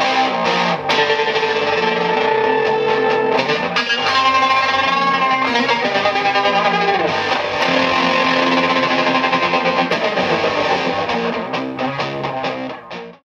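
Electric guitar played through an EarthQuaker Devices Dirt Transmitter fuzz and a Hummingbird tremolo pedal: fuzzy chords and held notes pulsing rapidly with tremolo. The sound fades out near the end.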